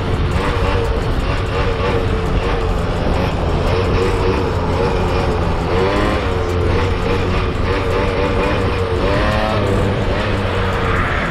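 Small two-stroke engine of a Suzuki LT80 quad running under way, its pitch wavering, with two quick rises in revs about six and nine seconds in.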